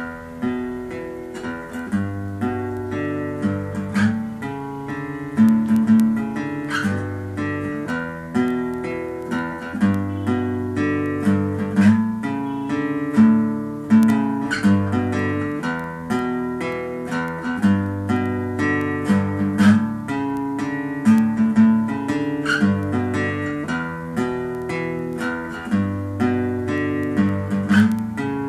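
Acoustic guitar played solo, plucked notes and strums over a repeating chord progression.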